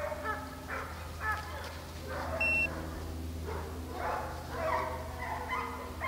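A pack of deer hounds baying in full cry while running a deer, many voices overlapping, over a steady low hum. A short electronic beep sounds about two and a half seconds in.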